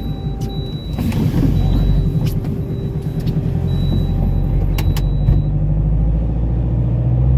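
Peugeot 807's 2.0 HDi common-rail diesel engine running, getting louder about a second in and again near the end. It has the knock that the mechanic puts down to a hydraulic valve lifter not pumping up, which lets air puff back into the intake and makes the airflow meter reading jump.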